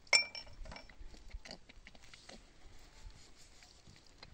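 Dishes being washed by hand: one sharp clink with a short ring just after the start, then lighter knocks and rubbing of crockery.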